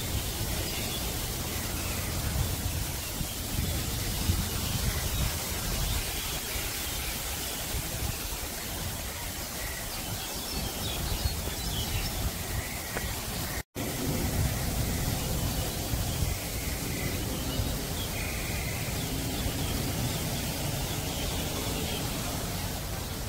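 Steady outdoor background noise, a hiss with a low, uneven rumble underneath, that cuts out completely for a moment about halfway through.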